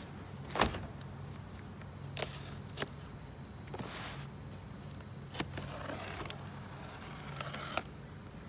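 Handling noise: a few scattered sharp clicks and knocks, with light scraping, over a steady low hum.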